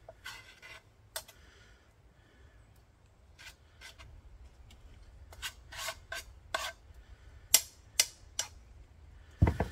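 A utensil scraping and stirring a grated-potato mixture in a frying pan: irregular scrapes, louder and quicker in the second half, with a few sharp clicks of utensil on metal and a knock near the end.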